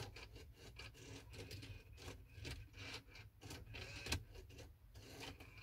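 Mercedes E500 W211 in-dash CD changer faintly whirring and clicking as it searches its magazine for disc 2, with irregular small clicks over a steady low hum. The magazine is empty, so no disc is found.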